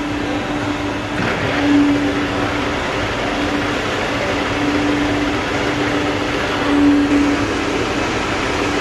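Steady workshop machinery hum: a low droning tone that swells and fades every two to three seconds over even background noise, with a brief scrape about a second in.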